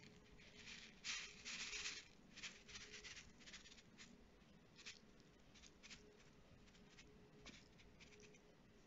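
Faint, scratchy rustling and light taps of a paper seed packet as China aster seeds are shaken out of it, the strongest run about a second in.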